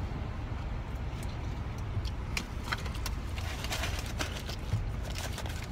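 Car engine running at low speed, heard from inside the cabin as a steady low hum, with scattered small clicks and rustles of eating and handling a sandwich wrapper.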